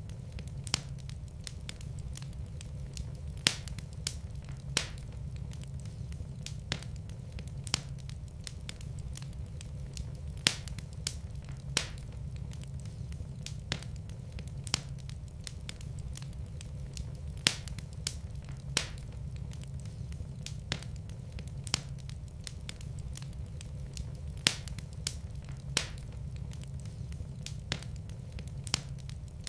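Wood fire burning in a fireplace: sharp crackles and pops every second or so over a steady low rumble.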